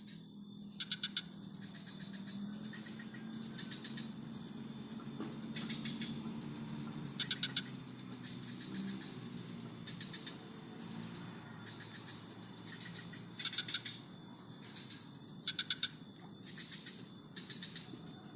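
Wild animal calls: short trains of rapid clicking pulses, high in pitch, repeated every second or two, some louder and nearer than others, over a steady low background noise.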